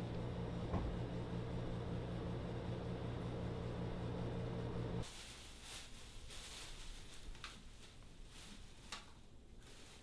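A steady low hum that cuts off suddenly about halfway through. It is followed by faint scattered crinkles and clicks of a plastic shopping bag being handled.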